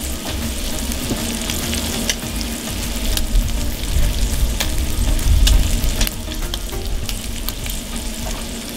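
Shrimp frying in olive oil in a cast-iron skillet over charcoal: a steady sizzle with scattered crackling pops.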